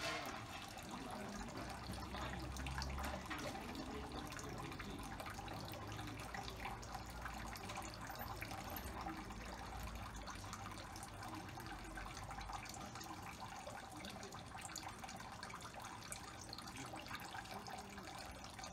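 Water running from a dragon spout into the stone basin of a shrine purification fountain (temizuya): a steady trickle and splash.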